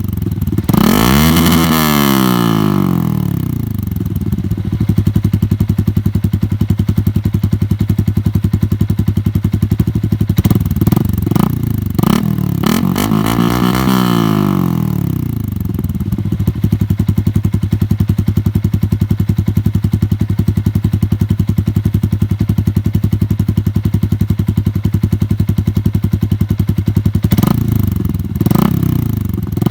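Yamaha Sniper 150's single-cylinder four-stroke engine running through an SC Project aftermarket exhaust muffler. It idles with a steady throb and is blipped twice, near the start and about halfway through, each rev rising and falling back to idle.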